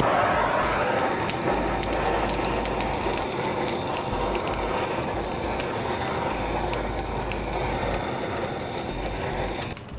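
Handheld gas blowtorch fitted with a Searzall attachment, running with a steady rushing noise over steaks sizzling in a hot cast iron skillet. It starts abruptly and stops just before the end.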